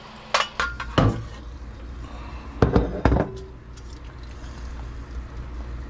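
Stainless steel colander and glass pot lid clinking against the rim of a stainless pot, three sharp clinks in the first second and three more around the three-second mark, while clam juice drains through the colander into the pot.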